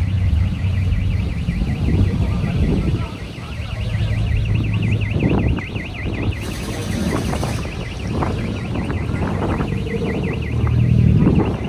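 A car alarm's electronic siren warbling rapidly and steadily, about six sweeps a second, and stopping near the end, over the low rumble of car engines.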